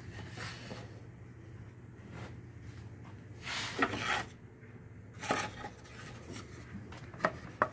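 Wooden drawers of a bandsaw box sliding and knocking as the box is handled: a scrape about halfway through, then a couple of light knocks near the end, over a low steady hum.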